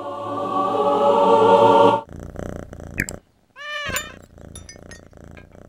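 Swelling music that cuts off abruptly about two seconds in, then a single short cat meow, rising and falling, about four seconds in, with faint clicks and brief tones after it.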